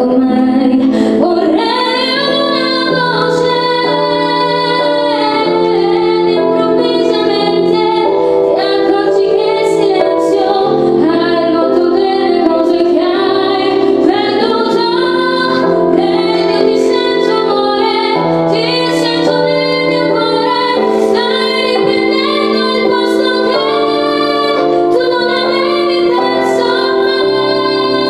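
A woman singing a slow ballad into a microphone, accompanied by long held chords on a Roland stage keyboard.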